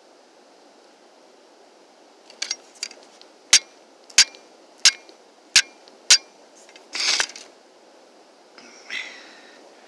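Steel striker hitting a flint rock: a couple of light taps, then five sharp strikes about two-thirds of a second apart, throwing sparks at char cloth to catch an ember. A short scraping rustle follows about seven seconds in, and a fainter one near the end.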